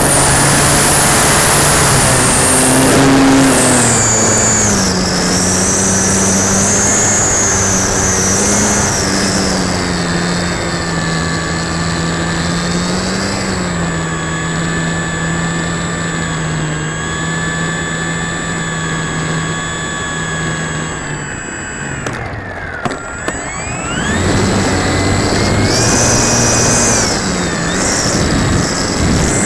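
Durafly Tundra RC plane's electric motor and propeller heard from an onboard camera, running with a high whine whose pitch shifts with the throttle. About 21 seconds in the throttle is cut and the whine sweeps down, then it climbs back up a couple of seconds later as power is added again.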